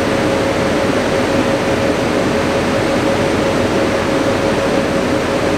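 Steady whirring hum of a standing passenger train's running machinery, with one constant mid-pitched tone over it.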